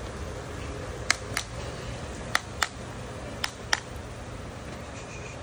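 Farrier's driving hammer tapping nails through a steel horseshoe into a horse's hoof: six sharp taps in three pairs, the pairs about a second apart.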